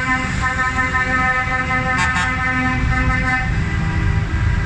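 Tractor horn sounding in a string of long blasts with short breaks, stopping about three and a half seconds in, over the steady low rumble of tractor engines passing close by.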